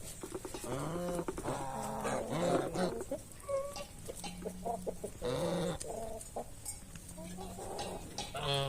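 Chickens clucking, many short calls overlapping, with a few sharp clicks in among them.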